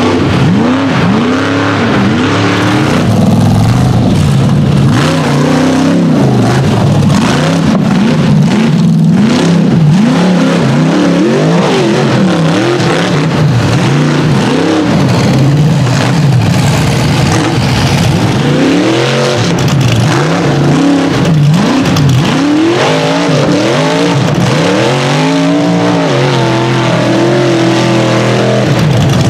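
Rock bouncer buggy's engine revving hard on a hill climb. The throttle is worked on and off, so the pitch rises and falls over and over, about once a second in the second half.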